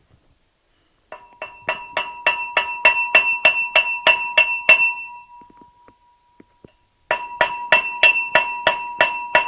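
A stone hammering on a piece of steel in a makeshift roadside repair, the metal ringing clearly with each blow. The blows come in two quick runs of about four a second, with a pause of about two seconds between them.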